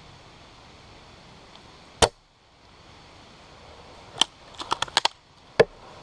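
Airsoft gunfire: a single loud sharp crack about two seconds in and another about four seconds in. A quick run of about five lighter snaps follows at around five seconds, then one more loud crack near the end.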